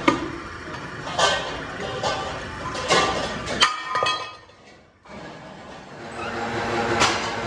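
Sharp metallic clinks and knocks, four in the first few seconds, as a steel wheel-rim disc is worked in a lathe chuck with a wrench. After a short drop in sound a steady machine hum sets in, with one more clink near the end.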